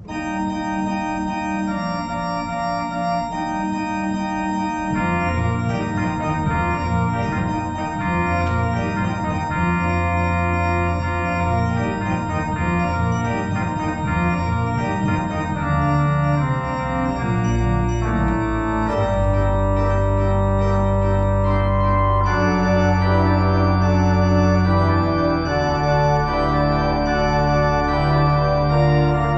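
Church organ playing a lively Irish jig in a trio arrangement, with sustained chords and a long held high note. Deep, fuller bass notes come in a little past halfway.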